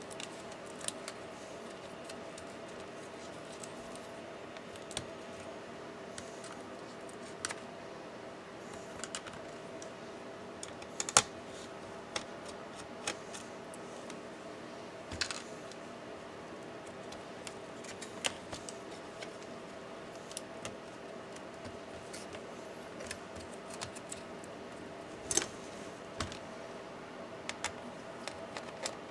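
Scattered small clicks and taps of a screwdriver and metal parts as a laptop's copper heat-pipe cooling assembly is unscrewed and lifted out, with a sharper knock about a third of the way in. A steady background hum runs underneath.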